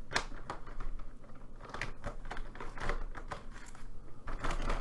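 Plastic alcohol markers being drawn across paper and handled: a run of small, irregular clicks and scratches.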